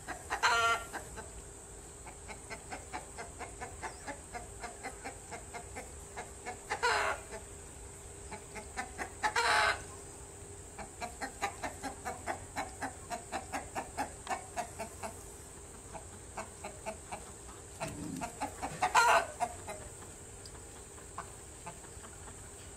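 Animal calls: runs of short, evenly spaced calls at about three a second, with four louder calls standing out, one near the start, two in the first half and one near the end.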